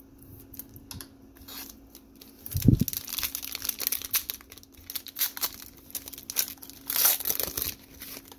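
Foil wrapper of a Panini Chronicles NASCAR trading-card pack being torn open and crinkled by hand, in irregular crackly bursts. A single dull thump comes about two and a half seconds in.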